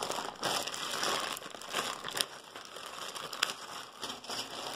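Clear plastic packaging bag crinkling as it is handled, with a few sharp crackles.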